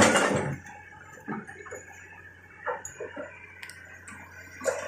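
Hitachi hydraulic excavator working in dense brush: a steady low engine hum under irregular crashes and cracks of branches and undergrowth, the loudest crash right at the start and a sharp crack a little past the middle.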